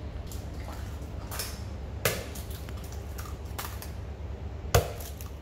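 Eggs being cracked and the shells dropped into a stainless-steel bowl: a few sharp taps and clicks, the loudest about two and about five seconds in, over a low steady hum.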